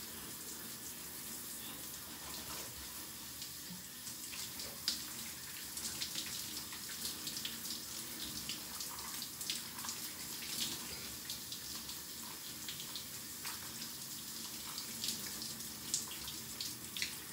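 Shower water running steadily and spattering, with many short sharp splashes as hands scrub and rinse soap out of a beard and hair.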